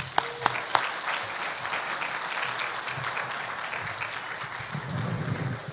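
Audience applauding: a few separate sharp claps that quickly build into steady, dense applause, which dies away at the end.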